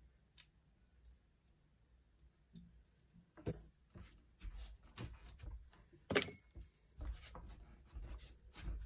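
A scattered run of small clicks and knocks, like small objects being handled, starting about three and a half seconds in, the loudest about six seconds in.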